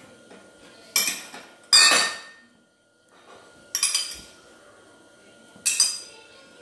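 A steel spoon clinking against a small steel cup and the frying pan as cooking oil is spooned out: four sharp, ringing clinks a second or two apart.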